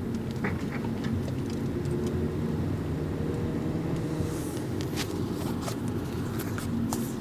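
2011 Mazda 3 2.0 sedan driving, with a steady low engine and road drone and scattered sharp clicks and creaks: the intermittent noise the owner hears over speed bumps, whose source service technicians could not find.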